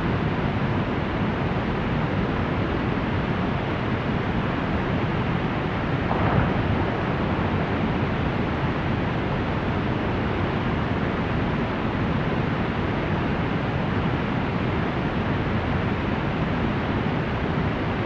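Steady rushing noise of rough, churning water, with one brief louder surge about six seconds in.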